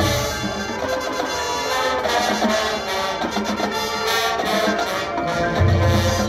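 High school marching band playing on the field, sounding sustained brass chords, with deep low notes at the start and again near the end.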